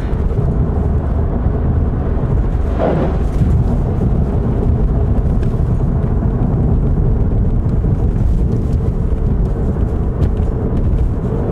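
Steady road and engine noise inside a moving Volkswagen Golf GTI Mk7, a dense low rumble at cruising speed.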